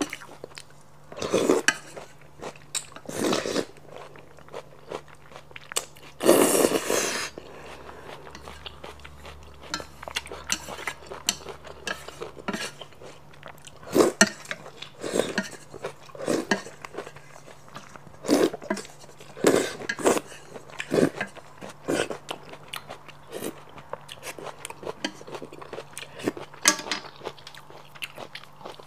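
Close-miked eating of spicy squid noodles: noodles slurped in irregular bursts, the longest and loudest about six seconds in, between chewing sounds and occasional clinks of chopsticks on a stainless steel pan.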